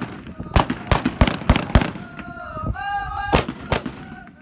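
A group of men chanting in unison, broken by loud, sharp cracks at uneven intervals, most of them in the first two seconds.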